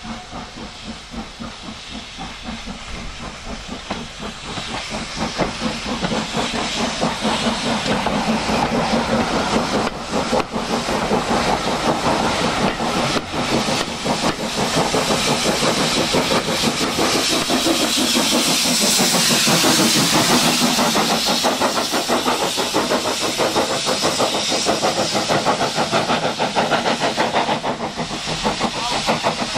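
1937 Hunslet steam locomotive working hard under load, its exhaust beating rapidly and evenly, with steam hissing from the cylinder drain cocks. It grows louder over the first few seconds, and the hiss is at its strongest about two-thirds of the way through.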